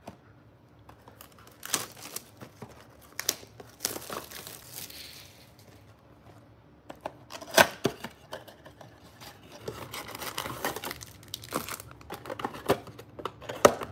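A Panini Prizm blaster box of trading cards being torn open and its foil-wrapped card packs pulled out and handled: irregular tearing and crinkling with several sharp snaps of cardboard and wrapper.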